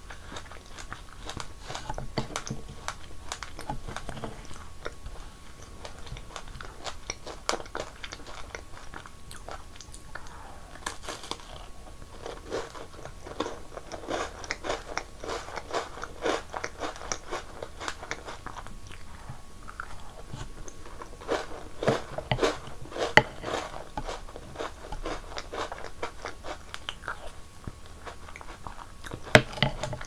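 Close-miked eating sounds: continuous chewing and crunching of an Oreo cookie and spoonfuls of strawberry milk shaved ice with crunchy snacks. A few sharper, louder crunches come about two-thirds of the way in and again near the end.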